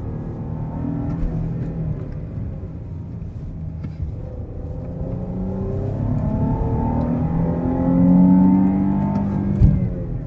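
A 2014 Chrysler 300's 3.0-litre V6 petrol engine accelerating under load, its pitch climbing and growing louder toward about eight seconds in. The pitch then drops suddenly near the end with a short thump.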